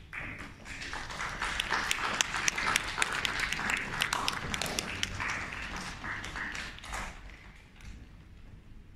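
Audience applauding, the clapping building over the first couple of seconds and dying away about seven seconds in.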